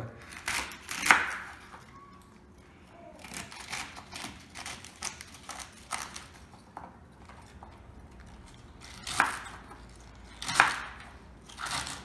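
Knife chopping celery stalks into small pieces on a wooden cutting board: an irregular run of crisp crunches and knocks, with a few louder chops about a second in and near the end.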